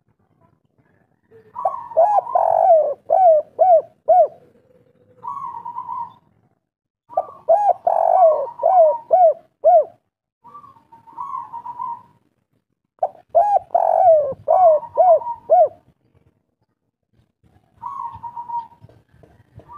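Spotted dove (derkuku) cooing: three full song phrases, each a rising opening note followed by a quick run of about five looping notes, with softer single coos between the phrases. A local bird of the 'kuk 3' song type.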